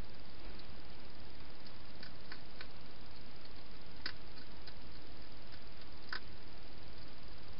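A hedgehog eating from a bowl, its chewing heard as a scattering of sharp crunching clicks over a steady hiss; the loudest clicks come about four and six seconds in.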